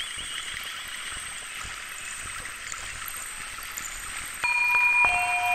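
Steady running-water sound like a stream, with a thin high tone over it; about four and a half seconds in, sustained synthesizer tones come in louder as the music begins.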